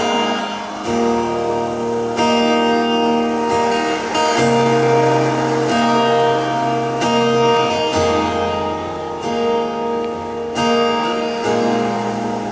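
Live band playing the instrumental intro of a ballad: guitar chords over a low bass line, moving to a new chord about every second and a half.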